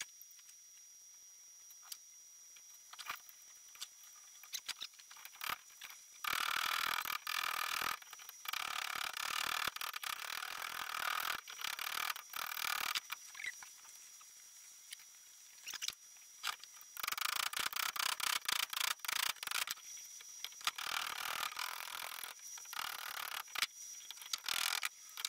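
Small hammer tapping thin sheet steel, shaping a segment for a fabricated exhaust collector: several runs of quick, light strikes with short pauses between them.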